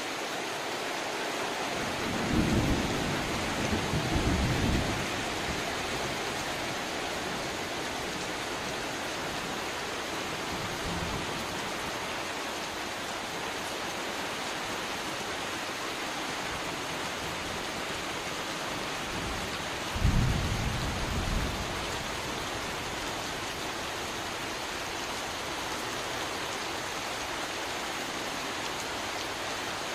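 Heavy rain falling steadily on river water and on the tarpaulin and plastic covers of moored boats. Two brief low rumbles break through, about two seconds in and again about twenty seconds in.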